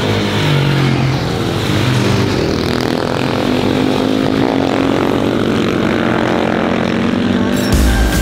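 Supermoto motorcycle engines revving hard as the bikes ride through bends, the engine note stepping up and down in pitch as they accelerate and ease off.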